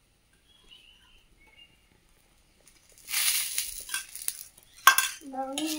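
Ghee spooned onto a hot iron griddle over a wood fire, sizzling for about a second and a half starting about three seconds in, then one sharp metal clink of the spoon against the steel ghee cup.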